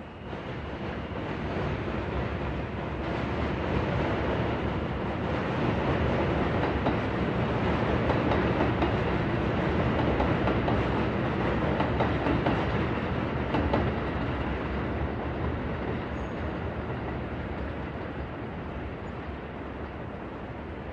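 A New York subway train passing through the station: the rumble builds over the first few seconds, is loudest around the middle, and slowly fades toward the end.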